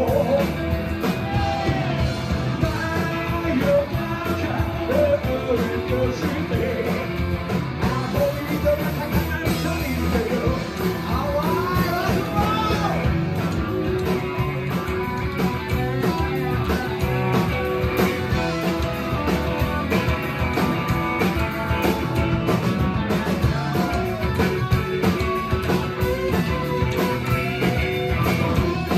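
Live rock and roll band playing loud and steady: electric guitars, upright bass and drums, heard from the crowd in a small club.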